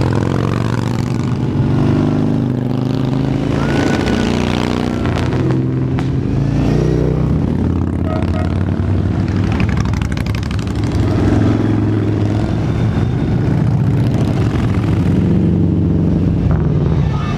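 Motorcycles riding past one after another in a parade, each engine note swelling and falling away as it goes by; a big touring motorcycle passes close near the end.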